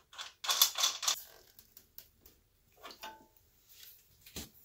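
Metal clicks and scrapes of a socket wrench tightening the axle nut on an e-bike rear hub motor, busiest in the first second, with a single sharp click near the end.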